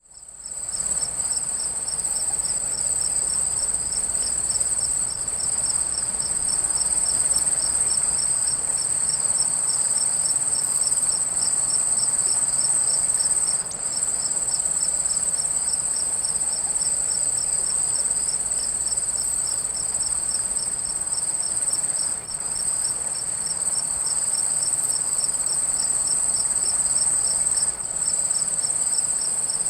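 Crickets chirping: a steady high trill with a second, rapidly pulsing chirp just below it, over a soft even hiss of rain. It fades in over the first second.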